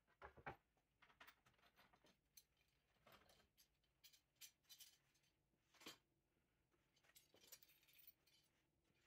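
Faint scattered clicks and clatter of hand tools and blue bar clamps being picked up and handled on a workbench, with the sharpest knocks about half a second in and near the six-second mark.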